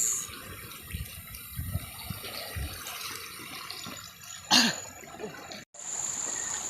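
Water sloshing and gurgling, with one louder splash about four and a half seconds in. After a sudden break near the end comes a steady rush of water with a constant high-pitched whine.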